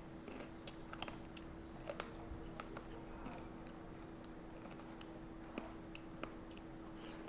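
Eating at a noodle bowl: scattered light clicks and taps of utensils, irregular and a second or so apart, over a steady hum.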